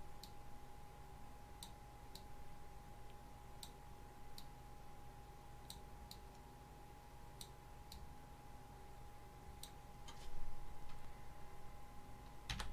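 Computer mouse clicking now and then, about a dozen single clicks at uneven intervals, over a faint steady electrical hum.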